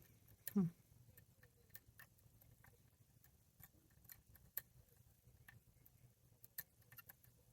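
Faint, irregular light clicks and ticks of a lock pick and tension wrench working the pin stack inside a NU-SET brass padlock's Euro cylinder during single-pin picking.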